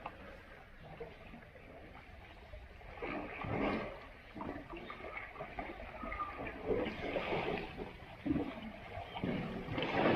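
Muddy river water splashing and sloshing in irregular surges as Asian elephants wallow in a mud bath.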